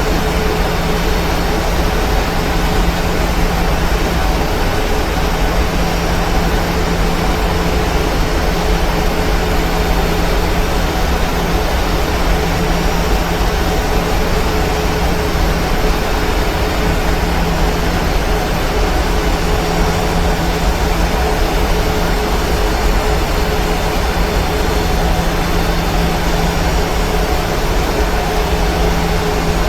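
Steady cabin noise of a Boeing 737-900 airliner on its descent to land: a constant rush of airflow and jet engine hum from its CFM56-7B engines, with a low steady drone and a fainter higher tone over it.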